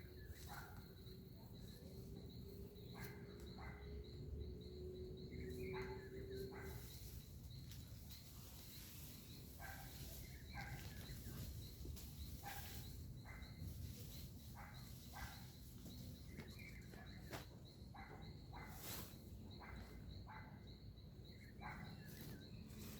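Faint rural backyard ambience: scattered short bird chirps over a steady high insect drone, with a low hum in the first seven seconds and a few short clicks.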